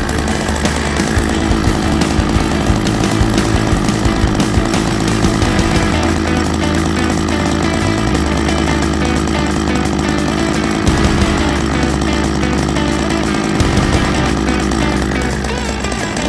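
Pro Mac 610 60cc two-stroke chainsaw running, with music playing over it.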